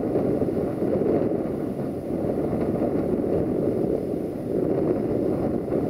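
Wind buffeting the microphone in a loud, uneven rumble, over the low running of diesel locomotives standing at idle.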